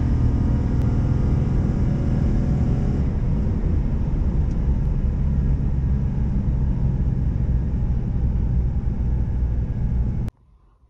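Ram 1500 Hemi V8 pickup heard from inside the cab under way on the drag strip: a loud, steady engine drone with road noise. It cuts off suddenly about ten seconds in.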